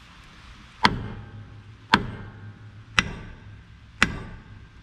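Hammer blows on steel during heavy-truck brake disassembly: four sharp metallic strikes about a second apart, each ringing briefly, as a stuck part is driven loose.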